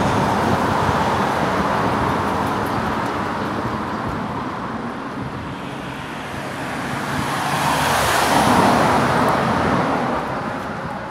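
Road traffic passing under the viaduct arch: a rushing noise fades over the first six seconds, then a vehicle drives past close by, rising to its loudest about eight seconds in and dying away.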